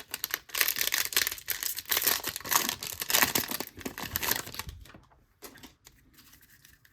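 A Topps trading-card pack wrapper being torn open and crinkled by hand, a dense crackling rip lasting a few seconds, then a few light clicks as the cards are handled.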